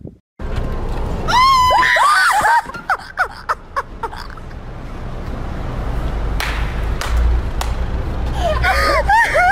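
Shrill, high-pitched screaming in a burst about a second in and again near the end. A steady low rumble grows louder underneath, with a few sharp knocks in between.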